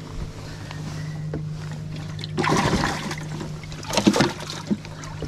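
Water splashing in a bass boat's livewell as bass thrash in it, in two bursts about two and a half and four seconds in, over a steady low hum.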